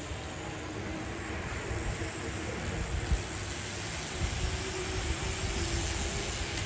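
A steady stream of road bicycles passing close by, their tyres hissing on tarmac, under a low, uneven rumble.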